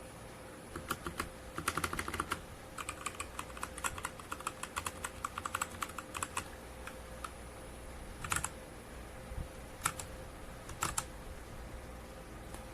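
Machenike K500 mechanical keyboard being typed on: a fast run of keystrokes for about six seconds, then a few single presses and short clusters a second or two apart.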